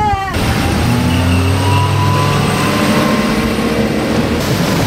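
Motorboat engine running at speed, its pitch rising slowly, over a steady rush of water spray and wind along the hull.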